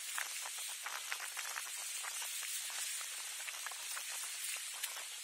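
Steady outdoor hiss with many faint crackles and ticks throughout.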